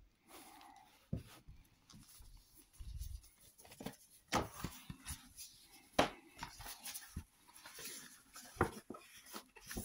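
A glossy paper dust jacket rustling and crinkling as it is slid off a large hardcover book, with several sharp taps and knocks as the book is handled.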